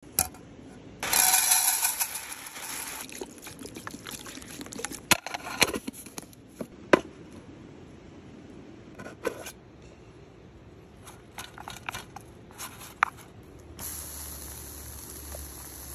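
A loud rushing noise for about two seconds near the start, then scattered clicks and knocks. About fourteen seconds in, slices of raw pork belly laid on a wire grill over hot charcoal start a steady sizzle.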